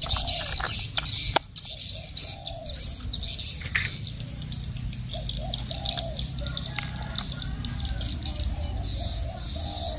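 Birds chirping continuously in the background. In the first second and a half there are a few sharp plastic clicks as a toy train's battery cover is handled and snapped into place.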